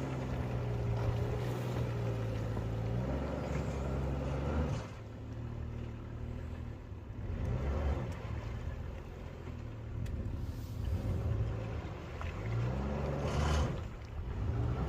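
Jeep Cherokee's engine pulling off-road, its revs and load following the throttle: steady at first, easing off about five seconds in, then rising again near the end.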